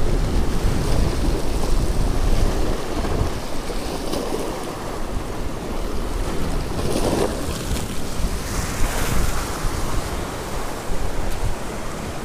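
Sea surf breaking and washing over rocks, with wind buffeting the microphone; louder surges about seven and nine seconds in.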